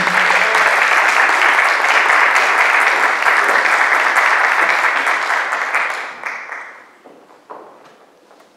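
Audience applauding: dense, steady clapping that dies away about six to seven seconds in.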